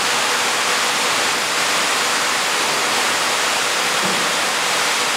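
Steady, even hiss with no knocks, rhythm or change in level, like rushing air in the factory hall.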